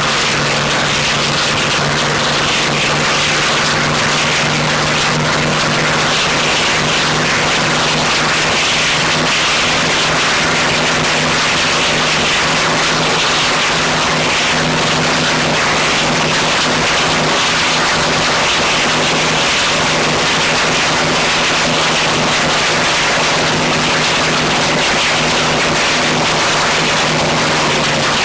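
Modified Hawker Sea Fury racer's Pratt & Whitney R-4360 radial engine running steadily at high power on a ground run-up, the propeller and open exhaust stacks making a loud, even drone.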